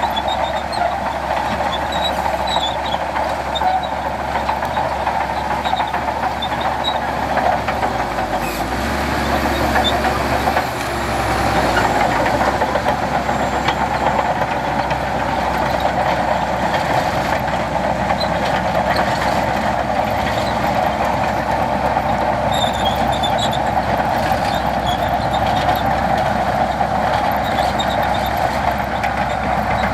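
Diesel engines of heavy earthmoving machinery running steadily under load. A deeper rumble swells for a few seconds about a third of the way in.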